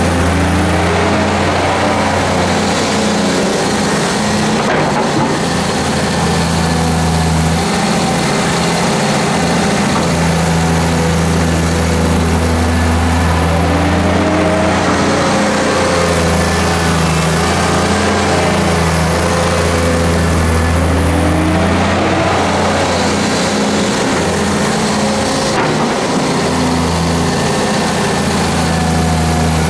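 Hyundai Robex 290LC-3 crawler excavator's diesel engine running steadily as it digs and swings sand. Its pitch dips and rises a little now and then as the load changes.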